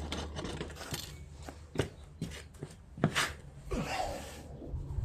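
Handling noise: a few sharp knocks and clicks with some rubbing and rustling, the loudest knocks about two and three seconds in.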